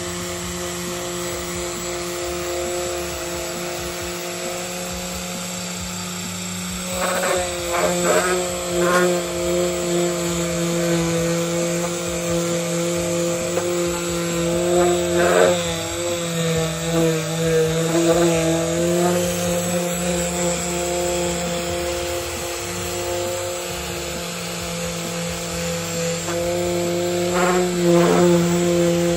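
Porter-Cable dual-action orbital sander running steadily as it sands paint off a car body panel. Its motor hum wavers a little in pitch as the pad is pressed and moved, with a few brief scrapes around 7–9 seconds in, about 15 seconds in and near the end.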